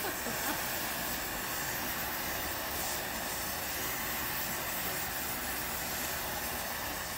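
Gas torch hissing steadily as its flame blows through a Yamaha QT50 two-stroke muffler, burning out the carbon that clogged it.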